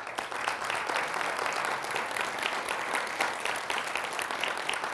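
An audience applauding, many hands clapping steadily.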